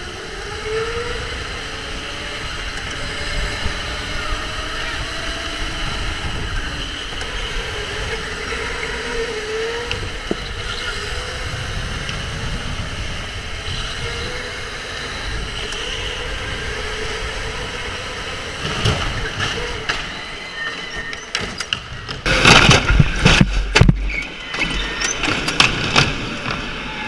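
Electric go-kart motor whining, its pitch rising and falling with speed, over steady tyre and running noise. Near the end, loud, rough bursts of noise take over.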